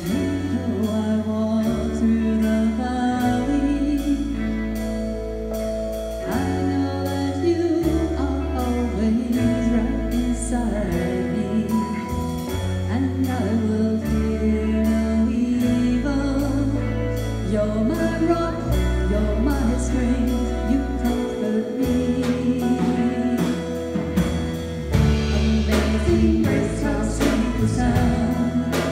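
Live worship band playing a gospel song: singers over electric guitar, bass, drum kit and keyboard, with the drums growing stronger near the end as the song builds into its chorus.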